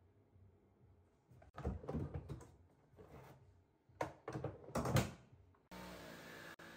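Timber boards and tools knocked and shifted on a tool-box top: a cluster of thumps about one and a half seconds in and another about four seconds in. Near the end a power tool's motor starts suddenly and runs steadily.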